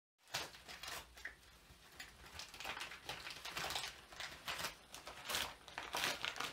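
Paper crinkling and tearing in irregular bursts as a West Highland white terrier shreds office documents.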